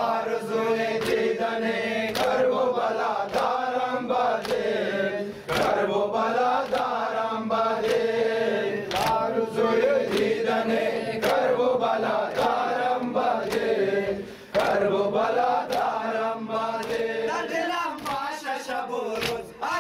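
Men chanting a Shia mourning lament (nauha) in unison, with sharp slaps of hands striking chests (matam) keeping a steady beat about once a second. The chant breaks off briefly twice between lines.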